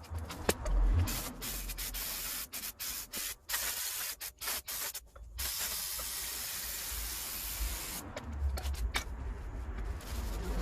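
Aerosol can spraying in a string of short hissing bursts, then one steady spray of about two and a half seconds.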